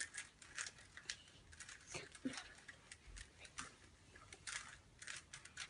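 Faint, irregular quick plastic clicks of a Rubik's cube's layers being turned during a solve.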